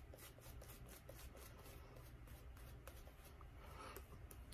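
Faint, quick scratching of a razor cutting stubble through shaving lather, several short strokes a second.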